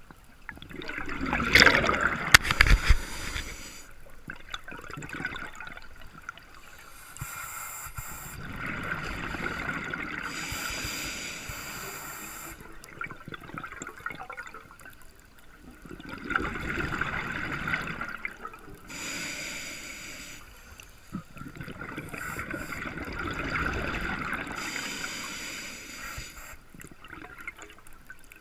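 Scuba diver breathing through a regulator underwater: slow, repeating cycles of hissing and bubbling gurgles, several seconds apart, the loudest about two seconds in.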